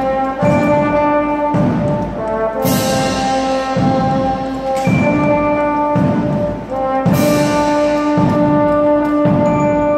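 Brass-and-drum marching band playing, with a trombone solo over held brass chords. Regular bass drum beats run underneath, and crash cymbals strike about every two seconds.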